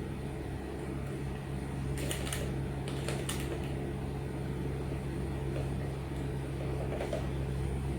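Steady low hum inside a stationary car, with a few light rustles and clicks about two, three and seven seconds in.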